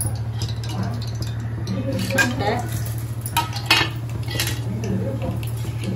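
Several clinks and knocks of kitchen utensils against an aluminium pressure cooker and steel containers as whole spices are dropped into the hot oil, over a steady low hum.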